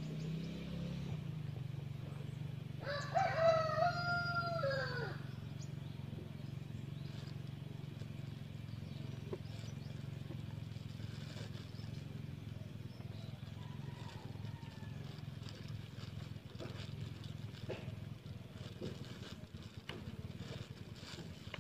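A rooster crows once about three seconds in, a call of about two seconds that drops in pitch at the end. A steady low hum runs underneath, with faint scattered taps later on.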